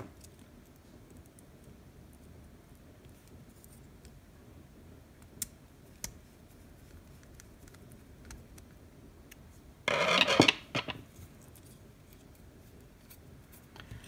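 Small hand-work on a relay module's screw-terminal block: a few faint clicks from a small screwdriver and wires, then a loud scraping, rubbing noise lasting about a second roughly ten seconds in.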